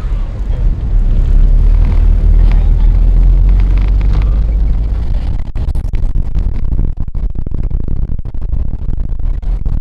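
Road and wind noise of a moving car, heard from inside the car: a loud, steady low rumble, strongest in the first half.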